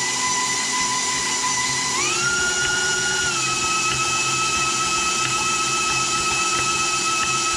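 Electric stand mixer running with its whisk attachment through crumbly cookie dough: a steady motor whine that steps up in pitch about two seconds in, then eases slightly back down.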